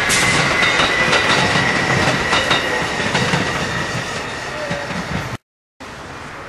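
Metra Electric bilevel electric commuter train passing: rushing wheel noise with a steady high tone and a few rail-joint clacks, fading as the last car goes by. Near the end the sound breaks off and a much quieter background follows.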